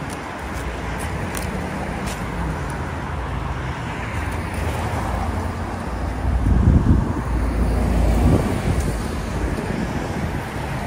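City road traffic noise, steady, with a louder low rumble swelling from about six to eight seconds in.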